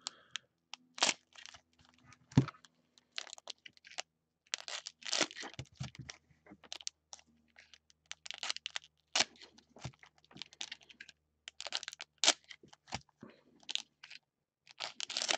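Hockey card pack's plastic wrapper being torn open and crinkled in gloved hands, then the cards slid out: irregular crinkling and rustling with sharp crackles.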